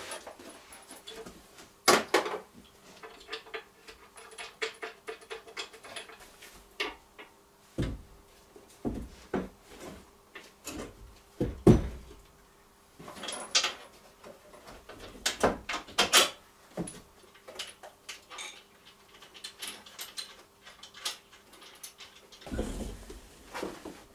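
Irregular clinks, knocks and rattles of metal hardware being handled: bolts, washers and frame parts of a motor-tow's seat mount being fitted, with a few louder knocks now and then.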